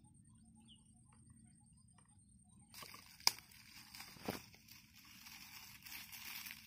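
Dry palm fronds and twigs rustling and snapping as they are broken and packed into a brick stove as kindling. The rustling starts about three seconds in, with two sharp snaps a second apart, the first the loudest.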